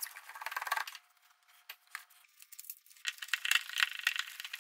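Sped-up clicking and rattling of a screwdriver backing out the screws of a plastic wall-switch cover plate and the switch's mounting screw, with the plate and screws knocking. A burst of quick clicks at the start, a short lull, then dense rattling clicks from about three seconds in.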